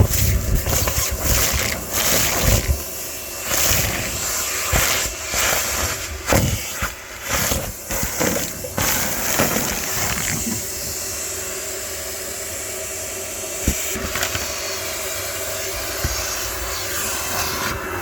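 Car wash vacuum cleaner running with a steady rush of suction. Irregular knocks and rattles go through its hose for about the first half, then it runs smoothly.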